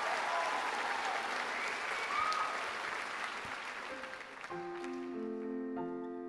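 Audience applauding, the applause dying away. About four and a half seconds in, a piano begins playing slow, sustained chords.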